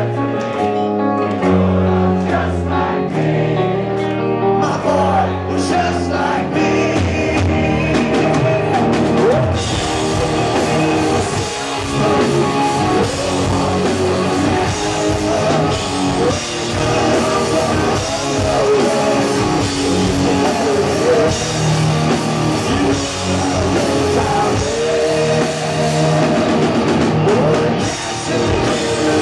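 Rock band playing live with singing: held chords for the first few seconds, then the drums and full band come in about ten seconds in and keep going.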